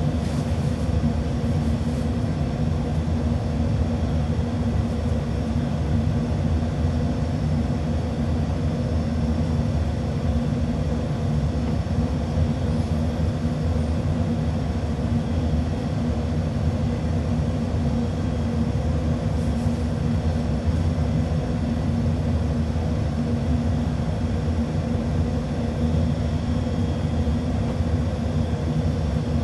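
Steady low rumbling hum that does not change.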